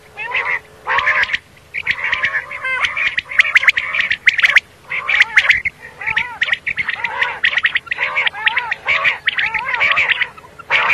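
Common quail calling: short, arched call notes and sharp clipped notes come in quick succession, in dense runs with brief gaps.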